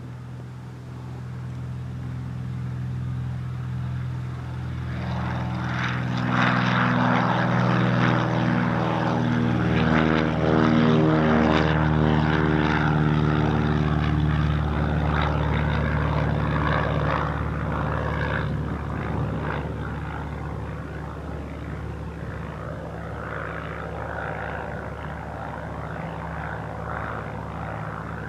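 Cessna 172G's six-cylinder Continental O-300 engine and propeller at take-off power as the aircraft lifts off and climbs out. It grows louder as it approaches, drops in pitch as it passes about ten seconds in, then fades as it climbs away.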